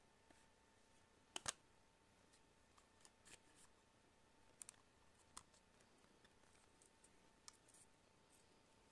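Scattered small clicks and taps of hand tools working on a tablet's casing during disassembly, the loudest a quick double click about a second and a half in, with a few lighter clicks later. A faint steady high hum runs underneath.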